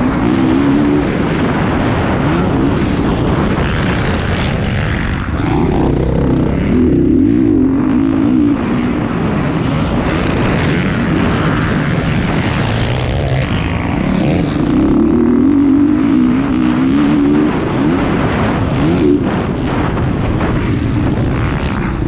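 Motocross bike engine heard on board at racing speed, the revs rising and falling again and again with the throttle over the track.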